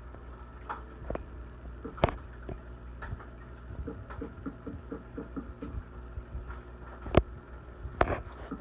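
Steady low hum of an aquarium pump running, with many small scattered clicks and three sharp knocks, about 2, 7 and 8 seconds in.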